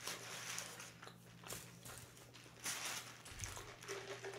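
Close-miked chewing of a bite of sub sandwich: soft, irregular wet mouth clicks and crunches, with a low soft thump about three seconds in.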